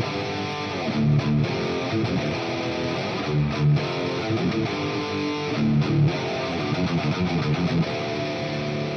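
Electric guitar through a high-gain distorted metal tone (Mesa Boogie amp into a Marshall 4x12 cabinet) playing a riff of short accented chords. It settles on a held chord near the end.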